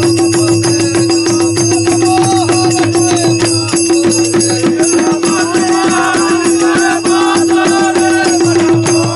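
Bagheli Phag folk song: men singing in unison to hand-played dholak barrel drums beating a fast, steady rhythm, with small rattling percussion. The singing comes in more strongly about halfway through.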